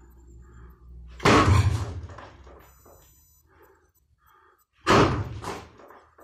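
Two kizami zuki jabs striking a padded wooden makiwara post, each a sharp thud that rings on for about half a second, some three and a half seconds apart.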